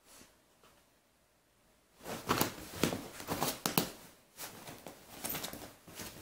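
A Labrador puppy and a golden retriever scuffling on a sofa in play: paws scrabbling and scratching at the blanket and cushions, a burst of rustles and sharp scrapes starting about two seconds in and carrying on more weakly.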